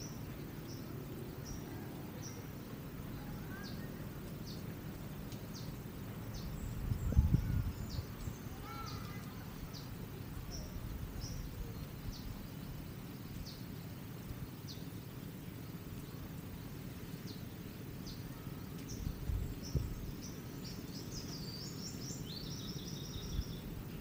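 Beach ambience: a steady low rush of wind, with small birds chirping in short high notes about once a second and a quick twittering call near the end. A brief low rumble, the loudest sound, comes about seven seconds in.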